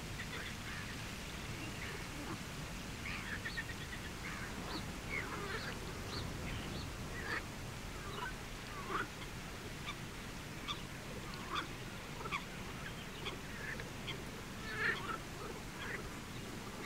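Birds calling around a pond: many short, scattered chirps and calls, some sliding in pitch, over a steady low background rumble.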